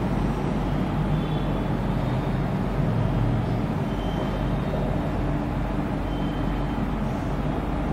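Steady background noise with a low hum, and a few faint short squeaks of a marker drawing lines on a whiteboard.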